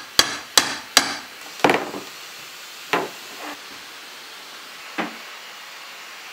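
Steel pry bar knocking and levering at a wooden shipping crate lid: three sharp wooden knocks in quick succession, then a longer crack and two more single knocks spaced well apart as the lid comes loose.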